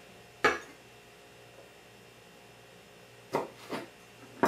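A kitchen knife cutting through pearl onions and tapping a plastic cutting board: one sharp tap about half a second in and two more close together near the end, as the ends of the onions are cut off.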